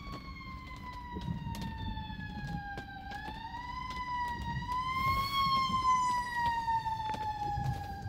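Fire apparatus siren on a slow wail, heard from inside a car: the pitch falls gradually for about three seconds, rises again, then falls slowly once more.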